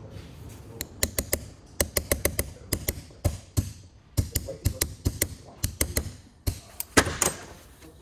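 Hand tools clicking and tapping against a Tesla steering wheel's bare metal hub as parts are worked loose, a quick irregular run of sharp clicks with short pauses.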